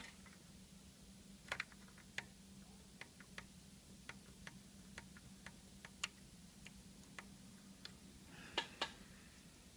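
Small, irregular clicks and taps of plastic parts being handled, as the receiver's power button and its surround at the faceplate are tried and fitted, with a close double click near the end. A faint steady low hum runs underneath.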